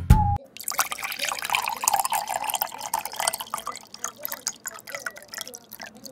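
Beer poured into a glass mug, splashing and fizzing as a thick foamy head builds, the crackle of the foam slowly fading toward the end.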